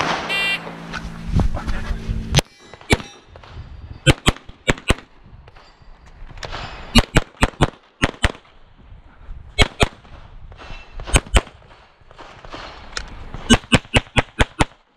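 Electronic shot timer's start beep, then a semi-automatic pistol fired in a USPSA stage: about two dozen shots in quick pairs and strings, with a rapid string of about eight shots near the end.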